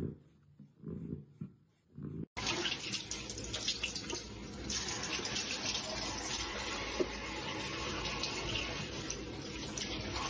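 Water running steadily, as from a tap into a sink, starting suddenly about two seconds in.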